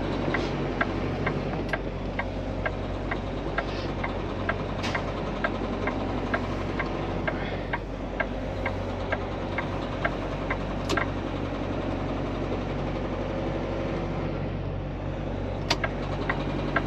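Semi truck's diesel engine running steadily, heard from inside the cab while the rig rolls slowly. A light, even ticking comes about two to three times a second and drops out for a few seconds late on. A few sharper clicks or rattles stand out now and then.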